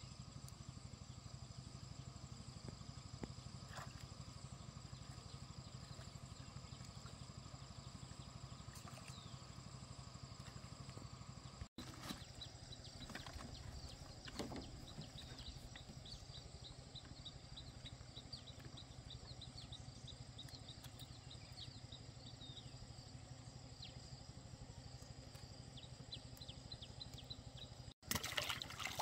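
Quiet outdoor background: a steady low hum with faint high steady tones. From about halfway in come rows of quick faint high chirps and a few soft knocks.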